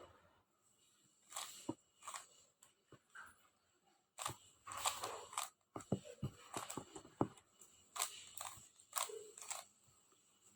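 Plastic 3x3 Rubik's cube being turned by hand: irregular bursts of clicking and rattling as its layers are twisted.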